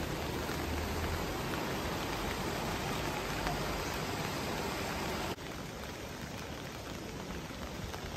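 Steady rain falling. About five seconds in, the sound cuts abruptly to slightly quieter rain with faint scattered drops.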